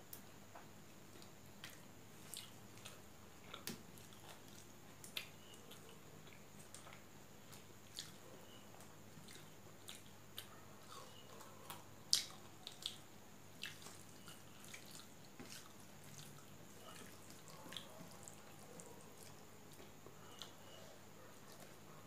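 Quiet eating sounds: scattered wet clicks and smacks of chewing, with fingers mixing food on a steel plate. The loudest click comes about halfway through.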